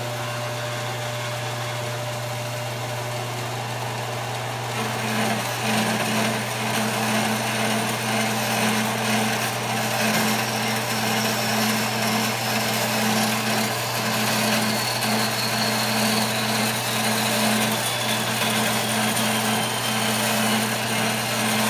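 Horizontal metal-cutting bandsaw running with a steady motor hum. About five seconds in, the blade starts cutting sheet metal and the sound grows louder and noisier as the saw frame feeds down smoothly under the friction-rod downfeed.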